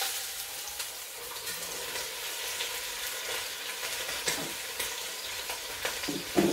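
Floured chuck roast searing in hot pan drippings in a Dutch oven: a steady sizzle, the sign that the fat is hot enough to sear, which the cook calls exactly what you want to hear. A short louder knock near the end.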